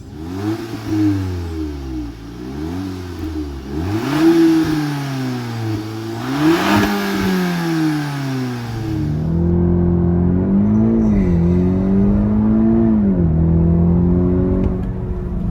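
VW T-Roc R's 2.0-litre turbocharged four-cylinder with Akrapovič titanium exhaust in Race mode, revved in several quick blips that rise and fall, then held at a steadier, higher speed with two short dips near the end. Heard from inside the cabin.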